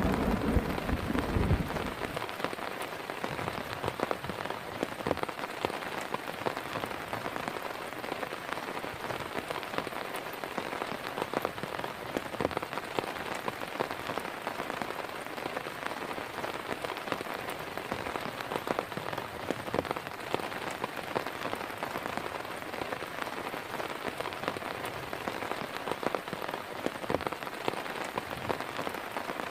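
Heavy rain pattering steadily on a surface, a dense run of individual drop impacts. A low rumble of thunder dies away in the first two seconds.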